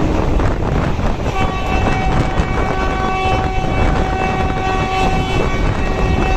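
Moving train heard from an open coach door: running rumble and wind. A train horn sounds a long, steady multi-tone blast starting about a second in.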